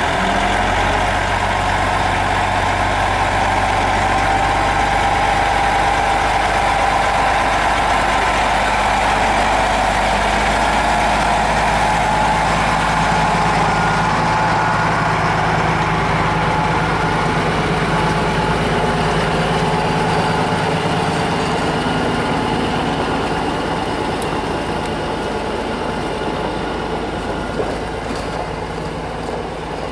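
Diesel engine of a semi truck running steadily at low speed as the tractor-trailer pulls slowly past. It fades a little near the end as the cab moves away.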